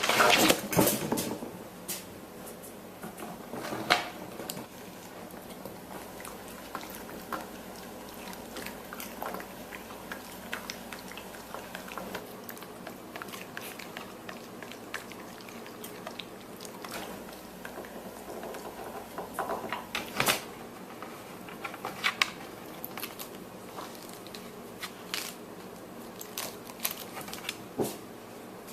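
A dog biting and chewing a cabbage: irregular crunches of the leaves, loudest in a cluster at the start and again now and then.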